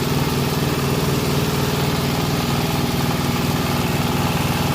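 Engine of a multipurpose chaff chopper and grinder machine running steadily at an even speed.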